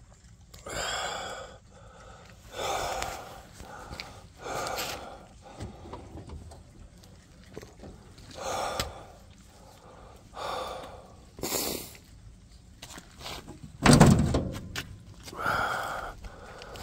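A person breathing heavily close to the microphone, a breath every second or two, with one louder, sharper breath about three-quarters of the way through.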